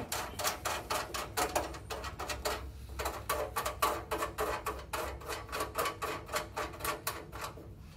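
Rapid light clicking, several ticks a second, as a set screw is wound down by hand through the cooktop's sheet-metal body.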